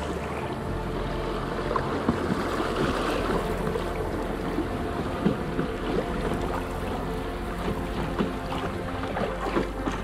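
Water sloshing and splashing around a packraft as it is paddled, with irregular paddle-stroke splashes.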